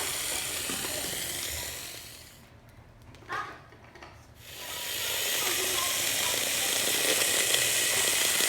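A small battery toy motor with plastic gears whirring steadily, typical of a motorized toy train engine running. It stops for about two seconds, then starts again and runs on. A brief child's vocal sound is heard in the gap.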